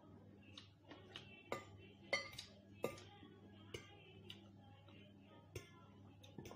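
A metal fork clinking and scraping against a ceramic bowl as noodles are twirled, a string of short clinks with the loudest about two seconds in, mixed with chewing and slurping sounds, over a faint steady hum.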